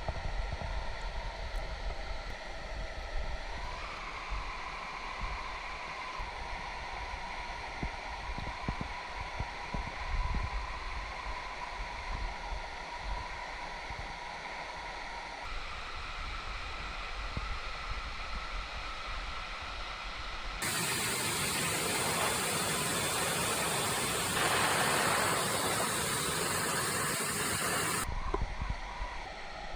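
Rushing mountain-stream water picked up by a GoPro. About two-thirds through it turns into a much louder, brighter hiss of white water for several seconds, then drops back.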